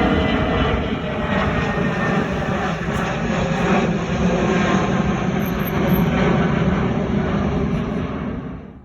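Jet airliner's engines at takeoff thrust: a loud, steady rumble that cuts off suddenly near the end.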